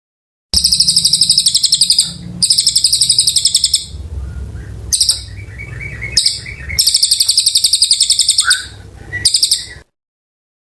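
Cililin songbird singing in long, fast, high-pitched trilled phrases, broken by short pauses and a few softer notes, over a low hum.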